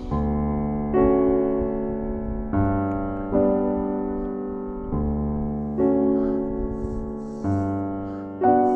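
Background piano music: slow chords, each struck and left to fade, with a new one about every second.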